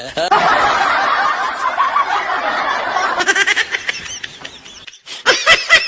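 Several people laughing at once, then a few loud short cries near the end.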